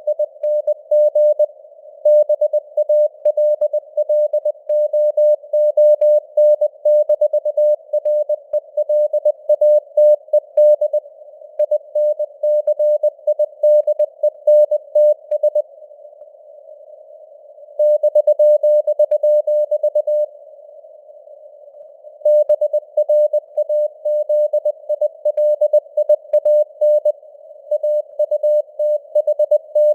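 Morse code (CW) sent as a single beeping tone near 600 Hz at 20 words per minute, over a faint hiss of simulated radio band noise. Midway the keying pauses, a long unbroken tone of about two and a half seconds sounds, and after another short pause the keying resumes.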